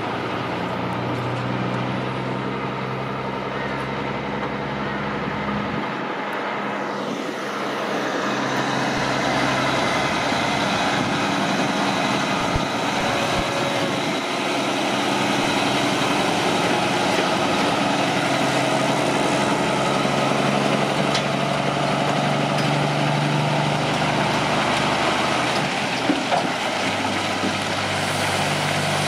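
Heavy truck diesel engines running: a steady idle for the first few seconds, then louder engine noise from about eight seconds in.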